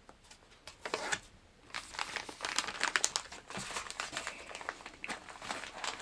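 Plastic fishing-lure packages crinkling and rustling as they are handled and moved around on a desk, starting about a second in.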